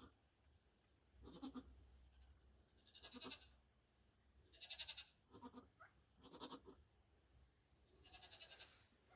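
Nigerian Dwarf goats bleating faintly: about six short, separate bleats spread through a few seconds.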